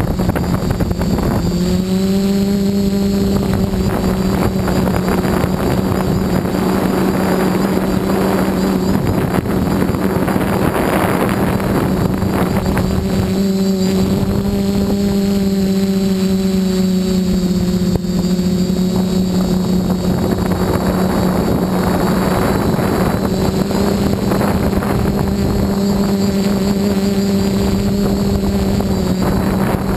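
The quadcopter's electric motors and propellers buzz with a steady hum in flight, with wind noise rushing over the onboard microphone. The hum steps up slightly in pitch about a second and a half in, then holds nearly level.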